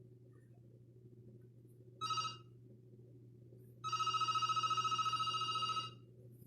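Panasonic cordless home phone's electronic ringtone: a brief ring about two seconds in, then a two-second ring with a fast warble about four seconds in.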